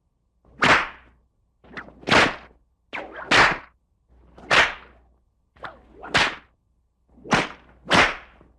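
A series of whip-crack sound effects, about seven in all, one roughly every second. Each is a short swish ending in a sharp crack, and some have a softer flick just before the main crack.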